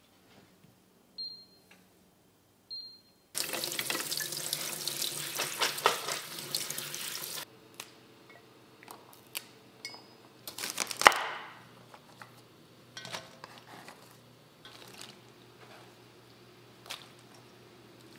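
Two short high clinks, then a kitchen tap running hard for about four seconds, then scattered light knocks and taps of green beans being handled on a wooden cutting board and in a stainless steel colander, the sharpest knock about eleven seconds in.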